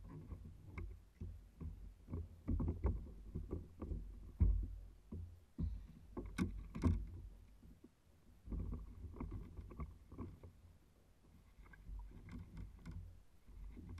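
Knocks and thumps on a kayak and its gear as a jack crevalle is hauled aboard and handled, over a low, uneven rumble. The sharpest knocks come about four and a half seconds in and again around six to seven seconds.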